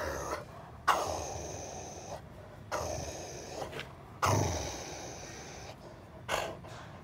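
Rottweiler breathing heavily through its nose right at the microphone: four sharp, noisy exhales, each fading over about a second.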